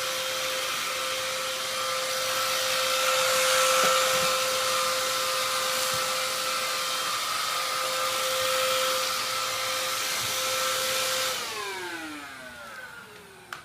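Deik 2-in-1 cordless stick vacuum running with a steady motor whine and a hiss of suction. About three-quarters of the way through, it is switched off and the whine falls in pitch as the motor spins down.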